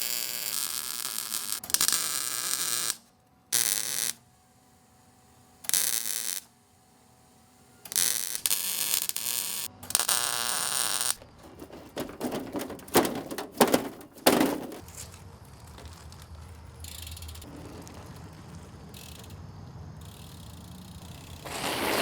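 Workshop power tools in short bursts that cut in and out abruptly, then a run of sharp clicks and knocks, then a low steady hum.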